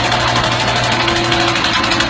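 An engine running steadily, with a low hum under a dense, rough mechanical noise.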